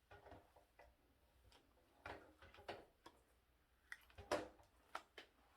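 Near silence with a few faint clicks and brief handling sounds from hair being straightened with a flat iron.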